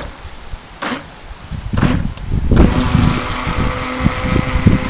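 Electric motor of a 9.6-volt Tornado RC 16-inch toy boat, given three short bursts, then from about two and a half seconds in running steadily with a whine over the hiss of the hull through the water as the boat passes close.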